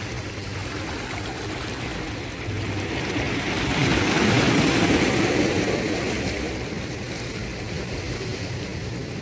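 Calm sea waves washing ashore, one wave swelling up and breaking in the middle before fading back, over a steady low hum.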